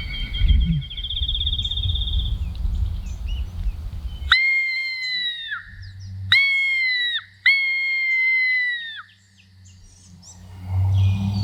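Bird calls: a high trill over wind rumble, then three long, loud calls of about a second each that fall slightly at the end.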